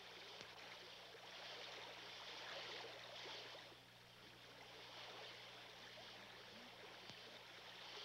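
Faint rushing of a shallow gravel-bed stream, swelling and easing a little, over a steady low electrical hum.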